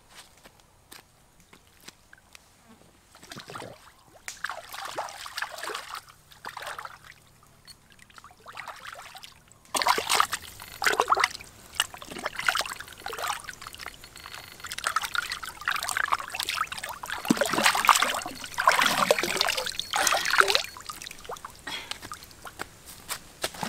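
Stream water splashing and sloshing as a large catfish is rinsed by hand, dipped and swished in the shallows; soft and sparse at first, much louder and busier from about ten seconds in.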